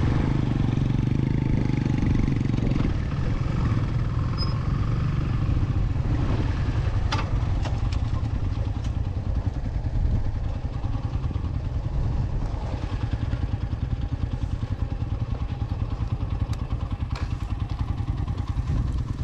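Suzuki GR150's single-cylinder four-stroke engine running at low revs as the bike rolls slowly over dirt, easing off about three seconds in and settling to an idle with an even pulse. A single sharp click comes about seven seconds in.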